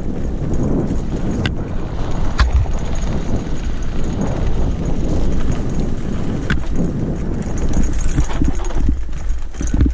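Gravel bike rattling down a rough dirt singletrack: tyres rumbling over the dirt and the bike knocking over bumps, with a few sharp clicks.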